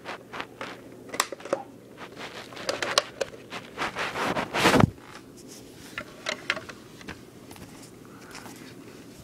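Handling noise from the recording iPod being set down and moved about: scattered clicks, rubs and small knocks, with one louder thump about five seconds in.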